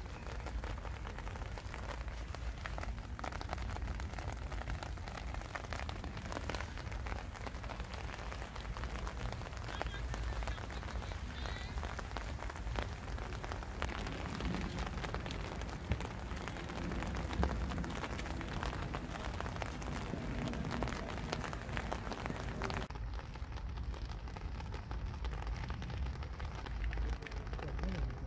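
Steady rain falling on hard surfaces, with many small drop ticks over a low rumble.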